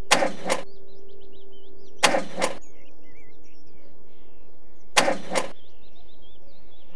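A car's starter cranking in three short bursts, about two and three seconds apart, without the engine catching: failed starts of the kind a weak battery gives. Birds chirp in the background.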